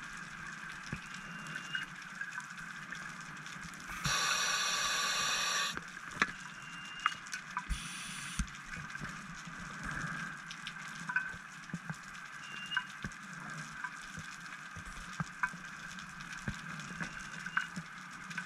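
Underwater ambience heard through a camera housing: a steady faint crackle with scattered sharp clicks. About four seconds in, a diver's exhaled bubbles burble loudly for nearly two seconds, with a shorter burst of bubbles around eight seconds.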